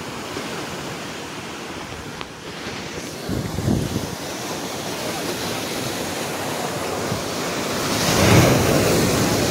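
Sea surf breaking and washing over a rock seawall, a steady rush with wind on the microphone. It swells briefly about three and a half seconds in and grows loudest around eight seconds in as a bigger wave breaks.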